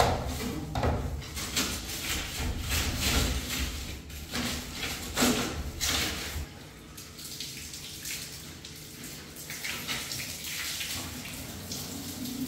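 Broom scrubbing a wet floor in repeated swishes, with water running. The strokes thin out about halfway through.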